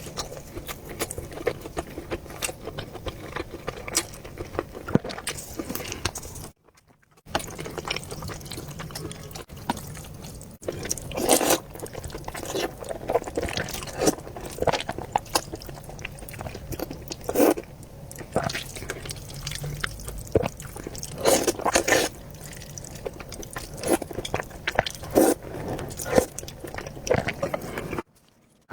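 A person eating noodles close to the microphone: chewing with irregular wet clicks and smacks. The sound cuts out twice, briefly, about seven seconds in and again near the end.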